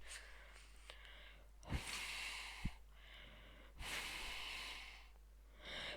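Breath blown into cupped hands in attempts at a hand whistle: three long, breathy rushes of air with little or no clear whistle tone.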